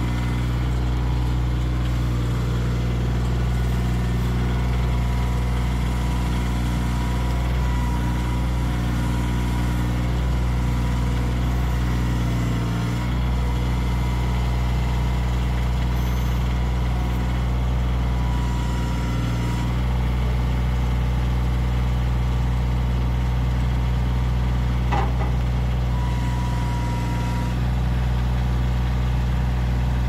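Compact tractor engine running steadily while it carries a log on its front loader. The engine note dips briefly twice, and there is a light knock near the end.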